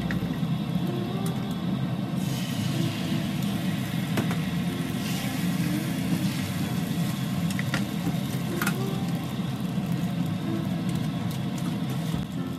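Beaten egg sizzling in a rectangular tamagoyaki pan over a gas burner, starting about two seconds in and fading away near the end, over a steady low hum. A few light clicks of wooden chopsticks against the pan.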